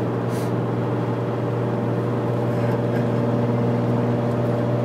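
Steady low drone of a car's engine and tyres, heard from inside the cabin while cruising at highway speed.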